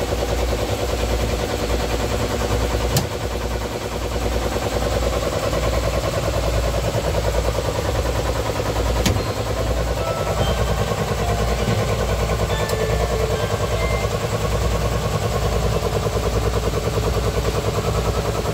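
Heavy industrial machinery running steadily, with a dense fast mechanical clatter over an even, pulsing low throb. Two sharp clicks stand out, about three seconds in and about nine seconds in.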